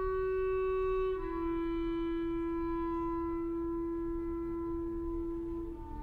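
Background music: a slow melody of long held notes, one held for several seconds, stepping down in pitch about a second in and again near the end.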